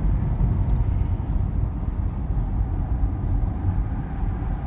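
Steady low rumble of tyre and engine noise inside a Jeep Grand Cherokee's cabin, driving along a road at moderate speed.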